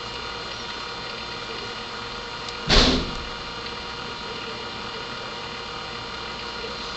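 Steady electrical background hum with several fixed tones, and one short, loud handling bump about three seconds in as the soldering iron and jumper wire are brought to the circuit board.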